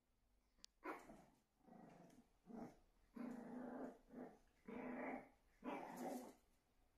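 Shih Tzu puppy growling and barking at its own reflection in a mirror, taking it for another dog. About seven short growly barks come one after another, starting about a second in.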